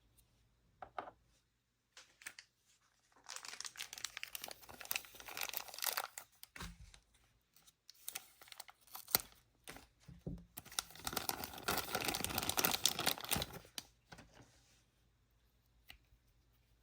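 Toy packaging being torn and crinkled by hand: two long stretches of tearing and rustling, with a few sharp clicks in the pause between them.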